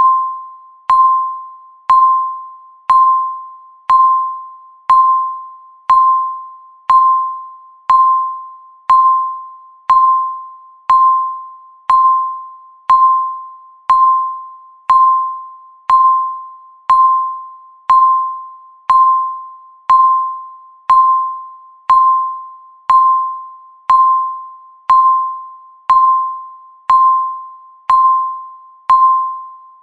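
Countdown timer beep, one per second, marking each second left. Each beep is the same single tone, starting sharply and fading away before the next.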